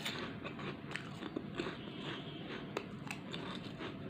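A person biting and chewing crunchy snack chips, with irregular sharp crunches.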